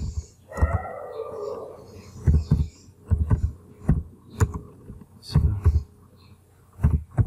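Computer keyboard keystrokes typed in irregular little runs, each press a short deep thud with a faint click.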